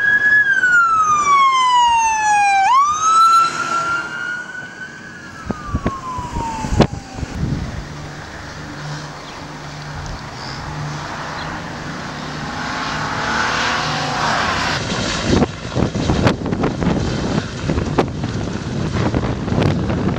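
An emergency vehicle siren wailing, its pitch sliding slowly down, snapping back up, then rising and falling again over about seven seconds before it fades. A low steady hum follows, and near the end gusty rumbling noise.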